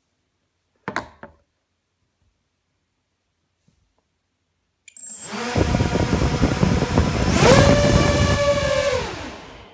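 Four EMAX MT2204 2300KV brushless motors on a 250-size quadcopter with HQ 6045 props spinning up, a whirring that builds from about halfway, rises sharply to a full-throttle whine with several overtones, holds there for about a second, then winds down near the end. The quad is held down at wide-open throttle, drawing maximum current. A brief knock comes about a second in.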